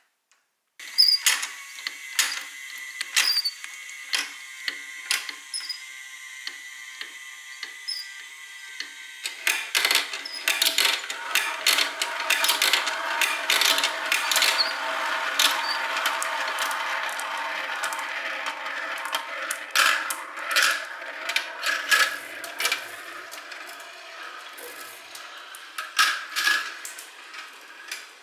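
A plastic marble run working: marbles clicking and rattling along plastic track over the steady whir of motorized marble elevators. From about ten seconds in, marbles rolling round a plastic spiral funnel add a loud, continuous rolling noise full of clicks, which eases off in the last few seconds.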